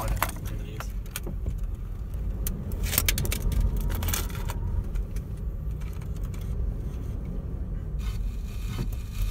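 Steady low rumble of a running car heard inside the cabin, with clicks and rattles as a CD is handled and pushed into the dashboard CD player. The clicks are loudest about three to four seconds in.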